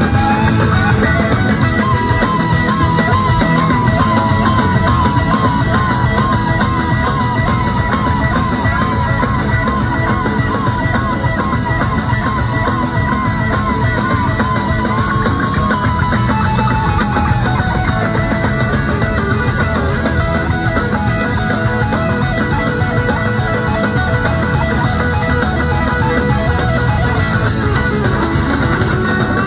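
Live rock band playing in an arena: electric guitars, bass and drums, with a lead guitar line wavering in vibrato over the band through the first half.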